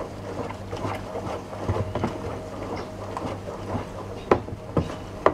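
A wooden spatula stirring foamy homemade dishwashing liquid in a plastic basin: swishing and sloshing with irregular knocks of the spatula against the basin, the sharpest ones in the last second or so. The stirring dissolves the thick N70 surfactant into the warm water.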